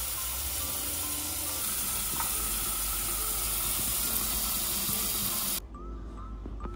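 Kitchen tap running hard into a stainless-steel bowl of cherries and strawberries in a steel sink: a steady splashing hiss that stops abruptly about five and a half seconds in.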